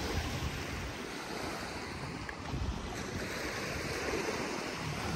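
Small waves washing onto a sandy beach, with wind buffeting the microphone in uneven low gusts.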